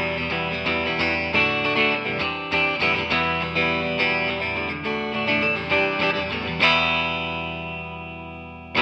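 Electric guitar picking a run of notes several a second, then striking a chord about two-thirds in that rings out and slowly fades, with a new strike right at the end.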